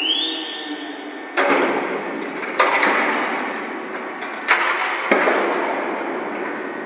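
Heavy steel clanks in a ship's steel cargo hold, steel rails and the crane's lifting gear knocking together, four times, each ringing on and fading with echo. A short rising squeal right at the start.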